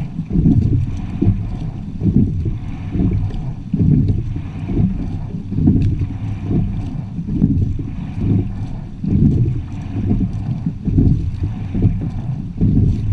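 Low, uneven rumble of water against a rowing shell's hull and wind buffeting the bow-mounted camera's microphone, swelling and fading every second or so.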